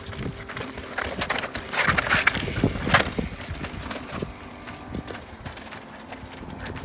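Mountain bike tyres crunching and clattering over rock and loose grit on a descent, with many short knocks, loudest about two to three seconds in.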